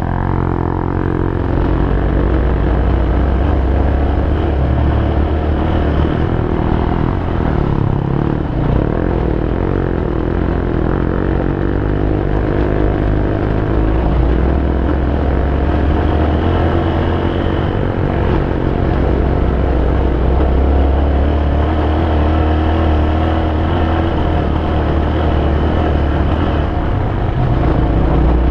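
Honda XR250 Baja's single-cylinder four-stroke engine running steadily at a constant throttle as the bike rides along, heard from the bike's own mounted camera.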